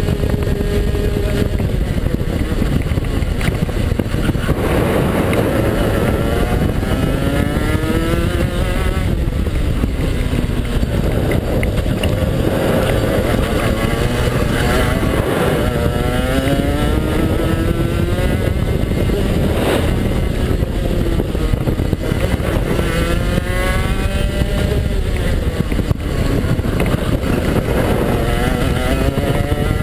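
A 125cc two-stroke TAG kart engine heard onboard at racing speed. Its pitch climbs on the straights and drops off into the corners several times over, under steady wind rumble on the microphone.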